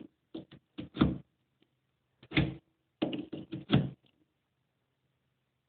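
Sharp plastic clicks and clacks from a GFCI outlet and a plug-in outlet tester being handled, coming in quick clusters over the first four seconds and then stopping.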